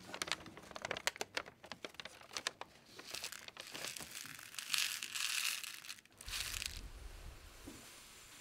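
A sheet of paper being crumpled and crinkled close to a microphone. It starts as a quick run of small crackles, then turns into longer rustling bursts around the middle.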